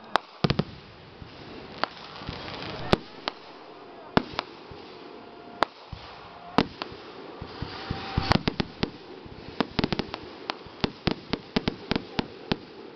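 Aerial firework shells bursting in sharp bangs at irregular intervals, then coming thick and fast in a rapid string from about eight seconds in.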